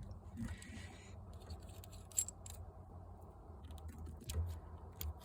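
Faint scattered clicks and small handling sounds, a few sharper ticks about two seconds in and again near the end, over a low steady hum.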